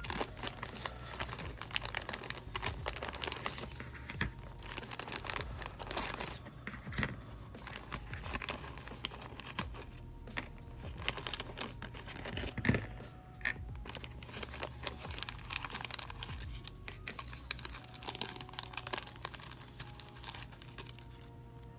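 Plastic parts bag crinkling and rustling as it is handled and opened, with many small irregular crackles.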